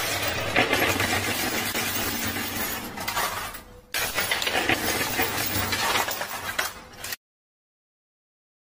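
Coin pusher machine: metal coins and plastic poker chips clinking and sliding against each other in a steady, dense clatter. The sound cuts off abruptly to dead silence about seven seconds in.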